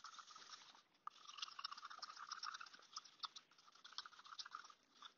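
Faint, irregular scraping and ticking of a stir stick against the sides of a small mixing cup as two-part epoxy resin and hardener are stirred together.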